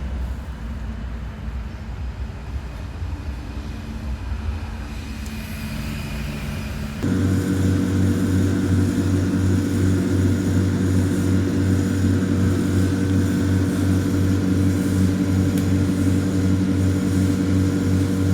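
A low rumble, then a small engine that comes in suddenly about seven seconds in and runs at a steady, even pitch.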